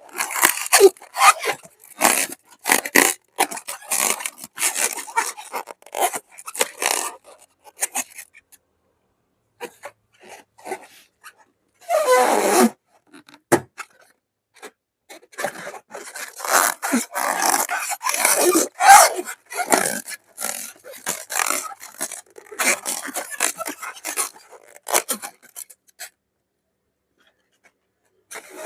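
Slime-filled balloons being handled and popped: a run of short, irregular scraping and rubbing noises, with two stretches of silence, one near the middle and one near the end.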